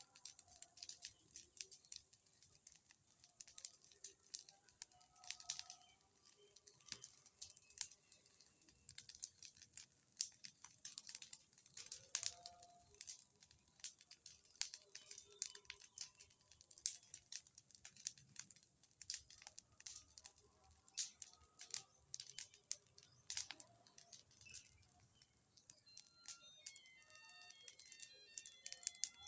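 Bonfire crackling: a steady run of irregular faint pops and snaps from the burning wood.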